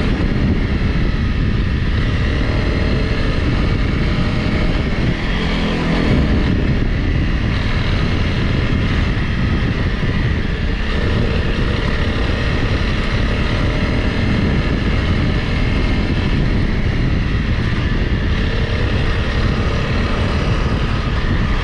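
Honda CRF Rally's single-cylinder engine running steadily as the motorcycle is ridden off-road, with a dense low rumble of ride noise under it.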